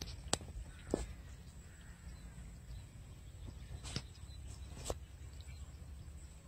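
Outdoor ambience: a steady low rumble with a few sharp clicks scattered through it.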